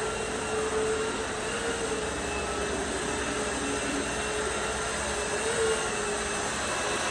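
A motor-driven machine running steadily: an even rushing noise with a constant hum-like tone on top.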